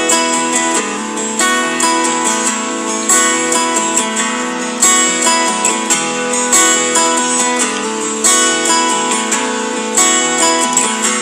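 Background music: strummed acoustic guitar with a steady rhythm of chords.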